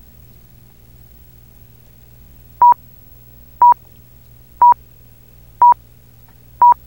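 Five short, high electronic beeps, evenly spaced one a second, starting a little under three seconds in, over a steady low hum.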